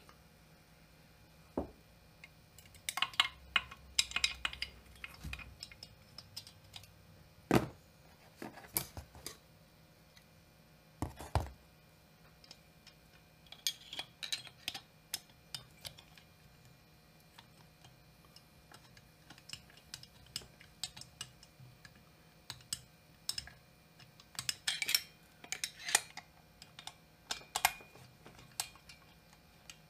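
Irregular metallic clicks, clinks and taps as hands start the cylinder screws on a chainsaw cylinder and crankcase being assembled.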